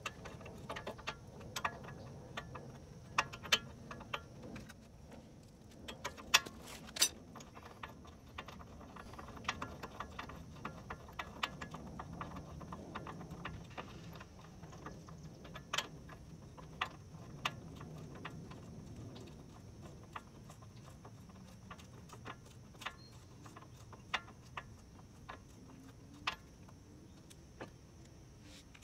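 Irregular light metallic clicks and taps as a car's front brake caliper, pads and hub hardware are handled by hand.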